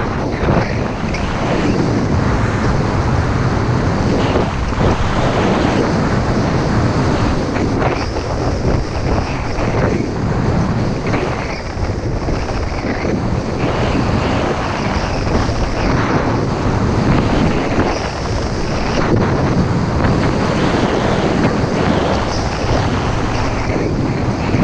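Wind rushing over the camera microphone while skiing fast, mixed with the scraping hiss of skis carving firm, packed snow, swelling with each turn.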